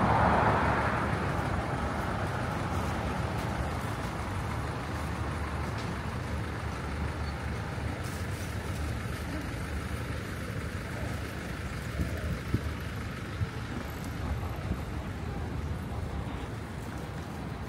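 Street ambience of steady road traffic, loudest in the first second or so as a vehicle goes by, with a few short sharp knocks about two-thirds of the way in.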